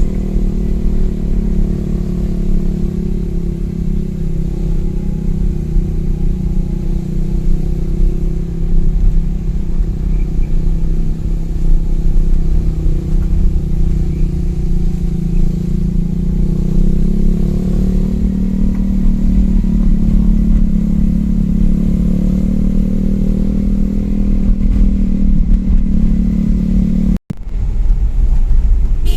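Motor vehicle engine running under a steady low rumble, its pitch easing down through the middle and climbing again later as the vehicle changes speed. The sound cuts out for an instant near the end.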